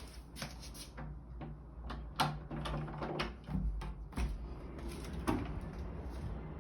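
Irregular clicks and knocks, sharpest about two, four and five seconds in, over a low steady hum.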